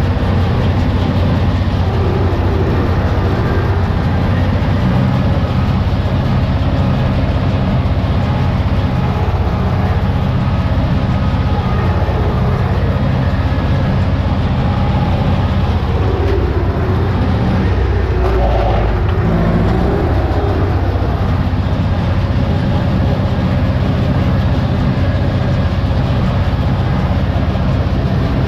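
Tractor engine running steadily under load, heard from inside the cab, driving a Sipma Z224 small square baler through the PTO shaft as the baler picks up hay.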